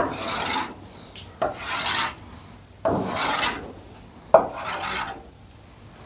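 Chalk drawn firmly across a blackboard in four long scraping strokes, each starting with a sharp tap of the chalk and coming about one and a half seconds apart.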